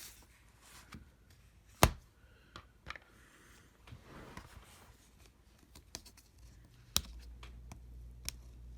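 Laptop keyboard keys being pushed out from underneath: faint handling with scattered clicks, a sharp click about two seconds in and another about seven seconds in. A low steady hum comes in at the second click.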